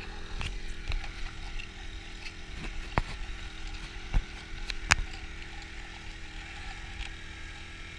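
Small backpack-mounted pump motor of a hydraulic salmon-egg injection device running steadily, driving water down a hose into a probe pushed into river gravel. A few sharp knocks come through now and then.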